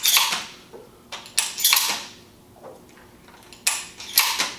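Shotgun shells being pushed one by one into the magazine tube of a Browning A5 semi-automatic shotgun, each one seating past the loading gate and shell latch with a sharp metallic click. The clicks come several times, some in close pairs.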